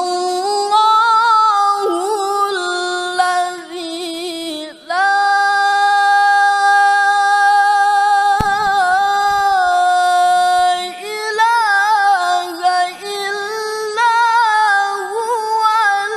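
A male qari's voice in melodic Quran recitation (tilawah), unaccompanied and high-pitched. He holds long ornamented notes, breaks briefly about four seconds in, then sustains one long steady note before returning to wavering melismatic phrases.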